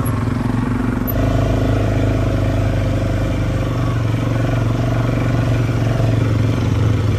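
ATV engine running steadily under way, picking up slightly about a second in.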